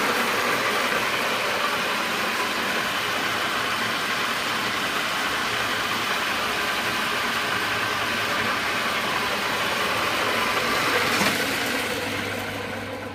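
Cincinnati Bickford Super Service 21-inch drill press running at 1500 rpm, spindle and gearing whirring steadily, then winding down over the last two seconds or so.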